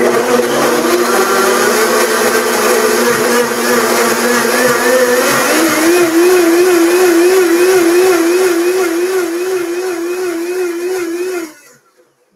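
High-power countertop blender running on a banana, plant-milk and flax waffle batter, blending it until smooth. Its pitch changes and starts to waver about halfway through, and it shuts off sharply about a second before the end.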